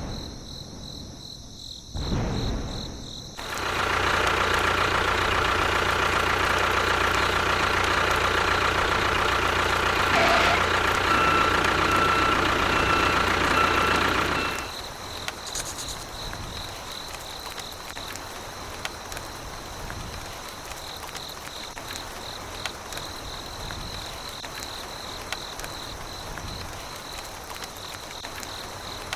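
A small motor runs steadily for about ten seconds and then cuts off suddenly, leaving crickets chirping.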